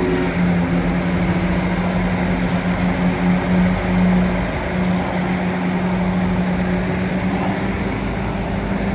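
Bulldozer engine running at a steady speed, a continuous even hum.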